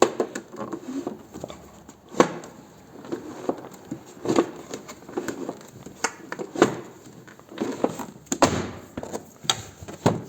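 Scattered clicks and knocks of handling, irregular, with a few sharper taps standing out.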